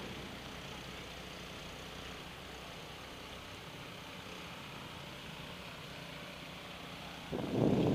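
Steady outdoor background hum and hiss, like distant traffic. About seven seconds in, a louder, irregular rumble of wind buffeting the microphone breaks in.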